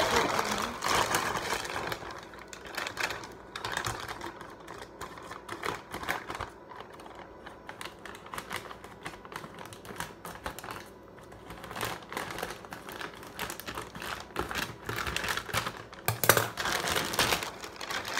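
Plastic courier mailer bag crinkling and rustling as it is handled and opened, a dense run of crackles. They are loudest at the start and again about sixteen seconds in.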